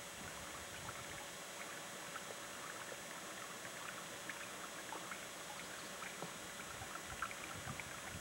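Faint lake-side ambience at dusk: a steady hiss with a faint thin hum, scattered light ticks, and small water sounds lapping on calm water.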